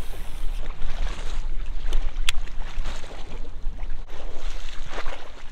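Wind rumbling on the microphone over water noise, with one sharp click about two seconds in.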